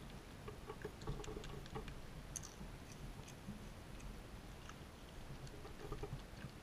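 Raccoons crunching and chewing Doritos tortilla chips close to the microphone: irregular crisp crunches and small clicks, with a cluster about a second in and another near the end.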